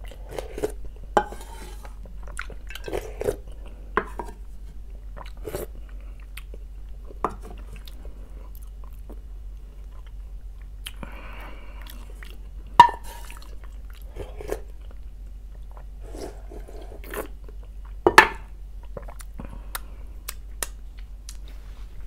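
Close-up eating sounds of a person having fish soup: sipping broth from a wooden spoon and the bowl, and chewing, with scattered small clinks of spoon and bowl. Two sharp clacks, the loudest sounds, come about halfway through and again about three-quarters through.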